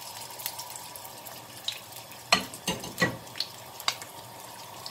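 Pork searing in hot oil in a pot: a steady sizzle, with a run of sharp clicks and knocks about halfway through.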